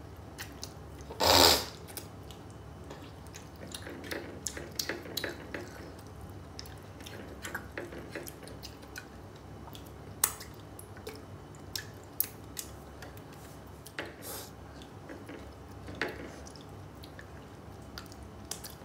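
Close-up eating sounds of a meal eaten by hand: chewing and small mouth clicks, with scattered light taps and scrapes of fingers and cutlery on a plate. About a second in, a short loud breathy rush stands out above them.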